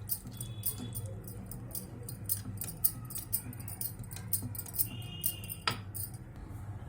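A spoon clinking and scraping against a bowl in quick, irregular strokes as gram-flour and buttermilk batter is stirred, over a steady low hum.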